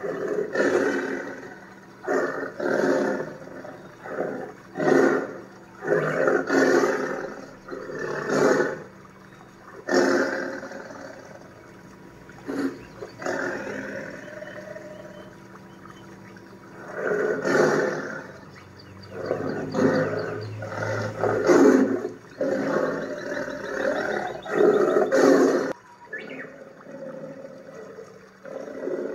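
Tigers roaring and growling, a recorded animal sound effect: a long run of rough roars, each about a second long, with a lull of a few seconds around the middle.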